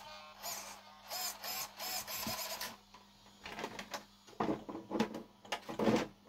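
Arma Mojave 4S RC car, just switched on, giving short electric whirring bursts that waver in pitch over the first few seconds. From about halfway in, a run of knocks and clatter follows.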